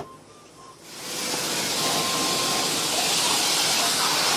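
High-pressure car-wash spray wand blasting water against the van's side window and door, heard from inside the cab. It starts about a second in, swells quickly and holds as a steady, loud hiss.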